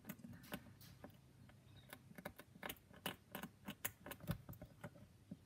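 Faint, irregular scratching and ticking of a hobby knife blade scraping the plastic backing film off a tiny piece of wood veneer decking, several small scrapes a second.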